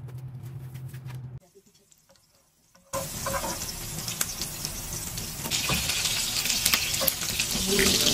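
Chapli kabab patties shallow-frying in oil in a pan: a steady sizzle that starts suddenly about three seconds in, after a brief low hum and a moment of near silence, and grows louder. A few notes of music come in near the end.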